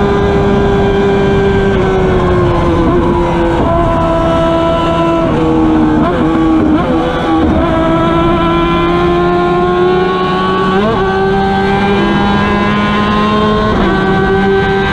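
Racing sidecar outfit's engine at high revs, heard onboard at speed: the note sags and climbs again, with several abrupt jumps in pitch at gear changes, over steady wind and road rush.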